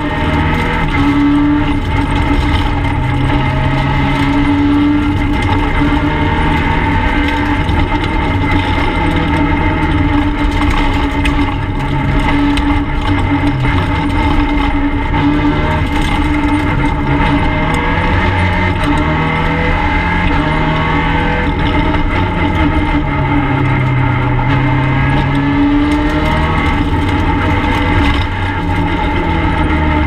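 Peugeot 208 R2 rally car's 1.6-litre four-cylinder engine driven hard, heard from inside the stripped cabin: revving high and loud, its pitch climbing and dropping again and again as it shifts gears, over steady road and tyre noise.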